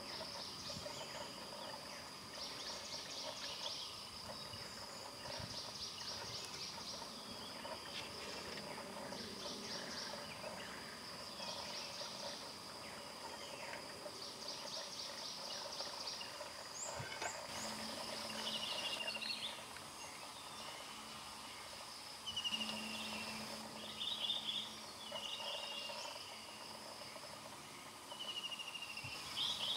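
Insects trilling in repeated pulsing bursts over a steady high whine, with birds giving short, falling chirps through the second half.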